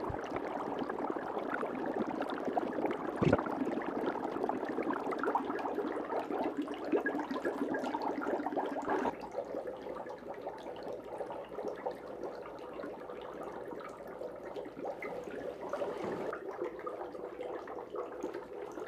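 Dry ice bubbling and fizzing vigorously in water in a steel mixing bowl, under a soap film that traps the fog. A single knock comes about three seconds in, and about nine seconds in the bubbling drops to a quieter, gentler level.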